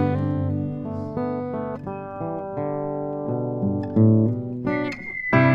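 Acoustic guitar playing an instrumental passage of an indie folk song, picked notes ringing on, with a louder strummed chord about five seconds in.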